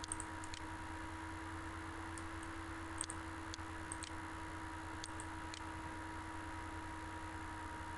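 Steady electrical hum and hiss of a screen-recording microphone, with about ten faint, sharp computer mouse clicks scattered through the first six seconds.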